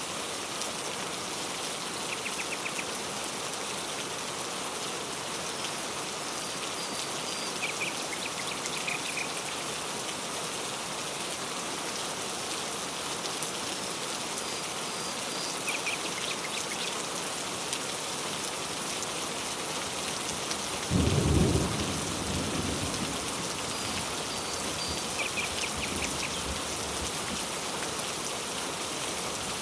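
Steady rain falling, with one thunder clap about two-thirds of the way through whose rumble dies away over a couple of seconds. A bird chirps faintly a few times.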